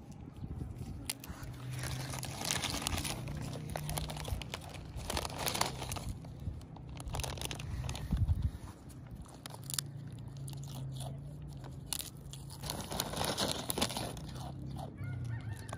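A goat crunching and chewing potato chips, with the foil chip packet crinkling loudly in several bursts as its muzzle pushes into the bag.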